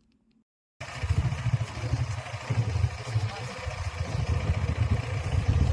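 Motorcycle running, a loud, steady low pulsing sound that cuts in abruptly about a second in.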